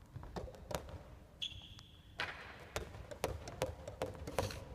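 Soft tennis play on a wooden gym floor: a string of sharp knocks from the rubber ball being struck and bouncing, along with footsteps, and a brief high squeak about a second and a half in.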